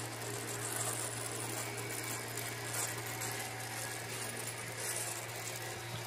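Steady low mechanical hum with an even hiss over it, with no distinct knocks or clicks.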